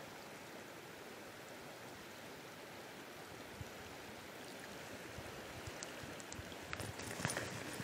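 River water running steadily over a shallow riffle, a faint even rush, with a few light clicks in the last couple of seconds.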